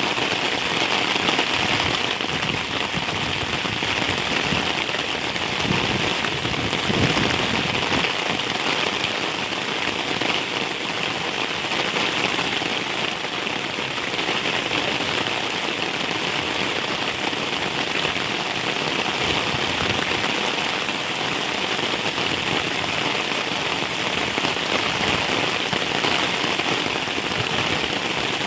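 Heavy rain falling steadily, a dense even hiss of drops with fine close patter.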